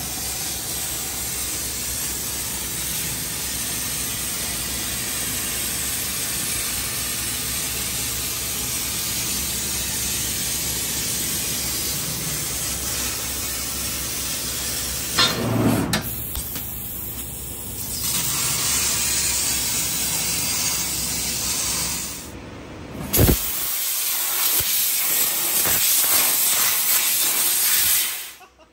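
CNC fiber laser cutting sheet metal, its cutting head blowing assist gas through the nozzle: a loud, steady hiss. It is broken by a sharp knock about halfway through and another past two-thirds in, and cuts off just before the end.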